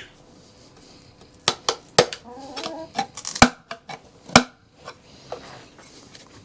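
Hand tools working on a metal equipment casing: sharp clicks and knocks, four louder ones about half a second to a second apart, with lighter ticks between.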